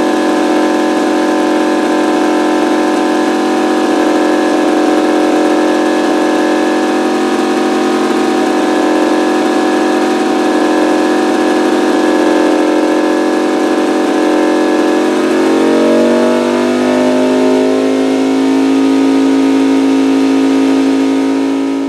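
McCulloch TSIR-5190 prototype radial aircraft engine running steadily on a test stand; about 15 seconds in its pitch drops as it slows, then it settles at a lower, steady speed.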